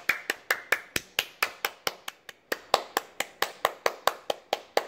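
Hands clapping in a steady, even rhythm of about four to five claps a second, as applause.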